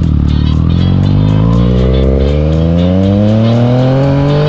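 Yamaha FZ-09's inline-three engine accelerating hard in one gear, its note climbing steadily as the revs rise.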